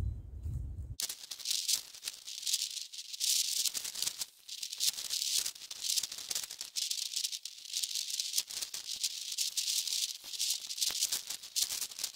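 Irregular rustling hiss, high in pitch and rising and falling unevenly, which starts abruptly about a second in after a short low rumble.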